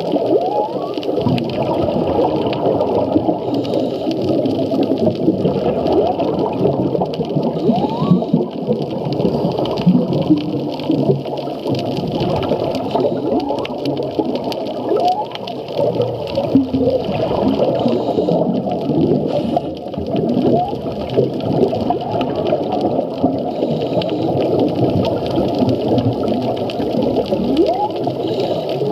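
Humpback whale song heard underwater: many overlapping short rising calls, moos and squeaks, over a steady underwater hiss.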